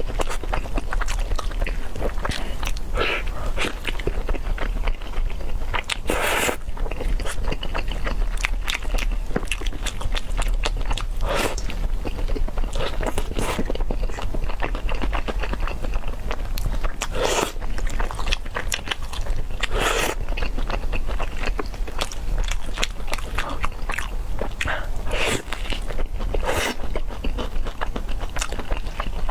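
Close-miked chewing of spicy peanut chicken: continuous wet, clicky mouth sounds with a louder crunchy bite every few seconds.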